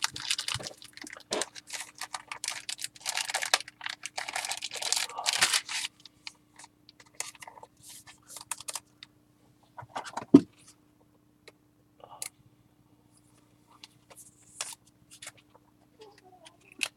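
2015 Topps Field Access football trading cards and their packaging being handled: dense rustling and crinkling for about the first six seconds, then scattered soft clicks and taps, with one sharper thump about ten seconds in.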